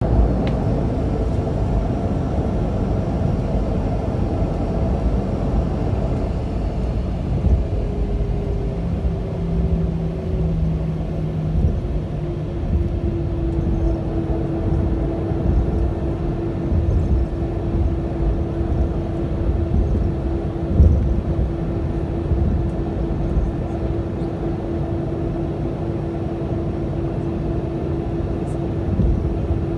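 Cabin noise of a Boeing 737-300 on the ground, heard from a seat over the wing: a steady rumble from its CFM56-3B2 engines running, with a steady hum that slides into pitch and settles about ten seconds in.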